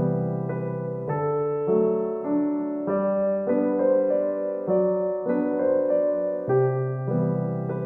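Background music: a gentle piano or electric-piano piece playing a series of held chords that change about every half second to second.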